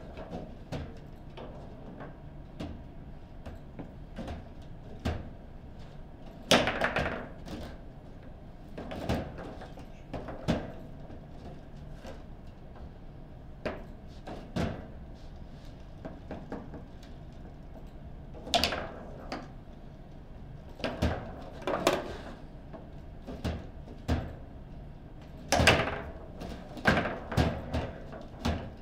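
Table football game in play: irregular sharp knocks and clacks as the ball is struck by the figures and the rods are slammed. The loudest hits come about six and a half seconds in and again near twenty-six seconds.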